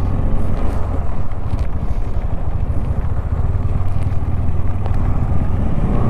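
Motorcycle engine running steadily at low speed, a constant low hum under road and wind noise.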